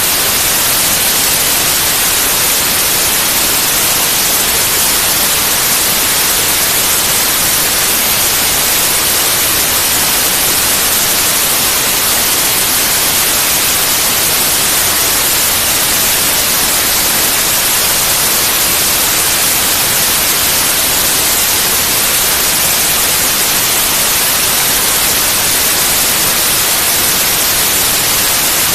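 Steady white noise: an even, unbroken hiss, strongest in the high frequencies, with no change in level.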